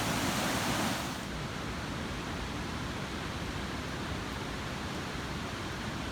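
Steady rushing of a mountain stream. About a second in, the sound turns duller and slightly quieter as the hiss at the top falls away, then carries on evenly.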